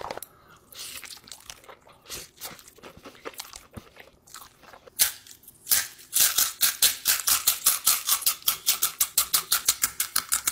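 Quiet chewing of ramen noodles, then from about six seconds in, fast, even crunching, about nine bites a second, as a small crunchy snack is nibbled with the front teeth.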